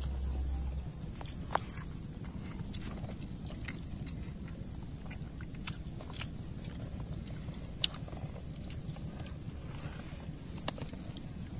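A steady, unbroken high-pitched drone of insects calling in the grass, with a few faint clicks and taps over it.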